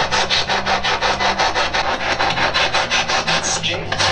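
Spirit box sweeping through radio stations: harsh static chopped into about six pulses a second.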